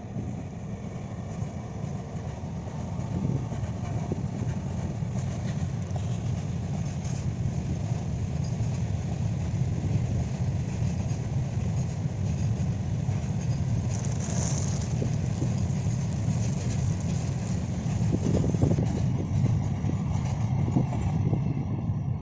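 Train running past on the track: a steady low rumble of wheels and wagons, slightly louder in the second half.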